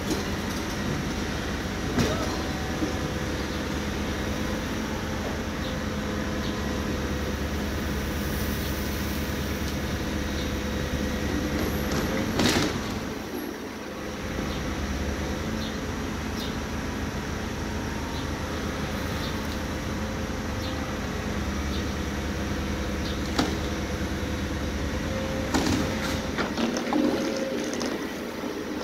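Tracked hydraulic excavator's diesel engine running steadily while it handles a large fuel tank, with a few sharp metallic knocks. The loudest knock comes about halfway, followed by a brief drop in the engine's rumble, and several more knocks come near the end.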